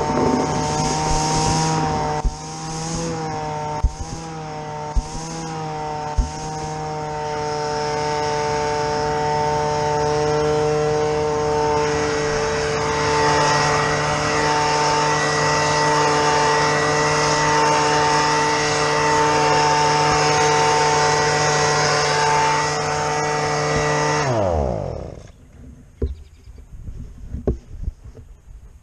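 Small engine running steadily at a fixed speed, with a few sharp knocks over it in the first seconds. About 24 seconds in it is shut off, and its pitch falls away over about a second as it winds down, leaving only scattered light knocks and clicks.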